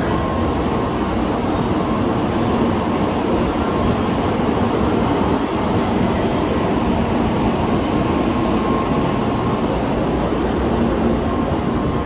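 Tokaido Shinkansen train running past the platform: a steady, loud rumble of wheels and running gear with a faint whine. It eases off slightly right at the end.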